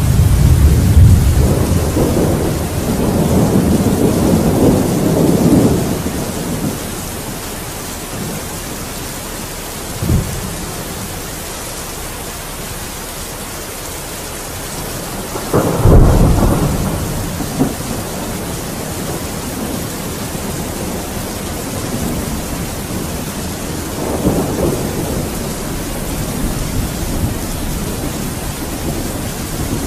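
Steady heavy rain with thunder: long rolling rumbles at the start, a short thud about ten seconds in, a sudden loud clap about sixteen seconds in that rumbles away, and more rumbling near the end.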